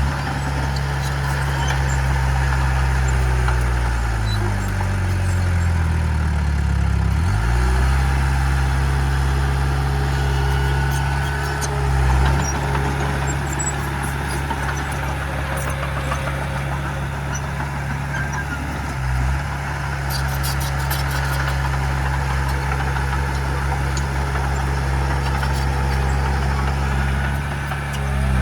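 Heavy diesel engine of earthmoving machinery running steadily; its pitch slides down for a few seconds about four seconds in, then picks back up, with brief swells twice later on.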